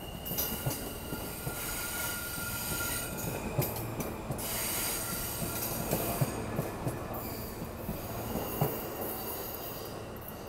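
R160B New York City Subway train pulling out and running close past, its wheels knocking over rail joints in an uneven series of clacks under a high-pitched whine. It fades near the end as the last car moves away.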